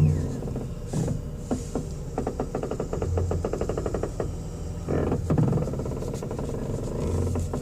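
A 2002 Ford Escape's steering noise: a rapid run of clicks, about a dozen a second, for a couple of seconds mid-way, with a few single knocks, over a low steady hum. The owner has been told it could be the CV joints or the steering column.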